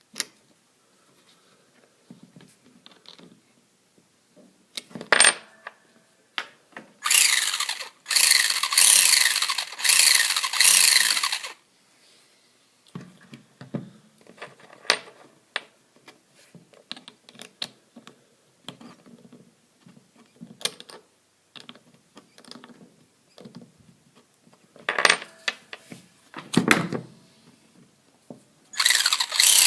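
Traxxas Slash 2WD RC truck's drivetrain run in bursts, with a whine that rises and falls and a grinding, ratcheting noise of unknown cause. There is one long burst about seven seconds in, another near the end and a few short ones, with clicks and knocks between them.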